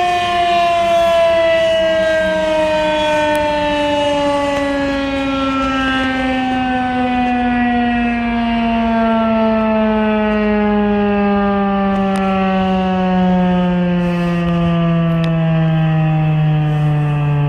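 Federal Signal 2001-SRNB electromechanical outdoor warning siren winding down, its loud tone falling slowly and steadily in pitch as the rotor coasts down after the test signal.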